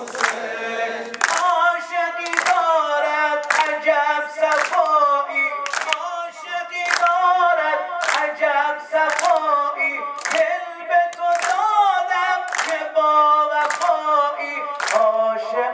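Persian Shia devotional singing (maddahi) with the seated crowd clapping together in time, one sharp clap about every second.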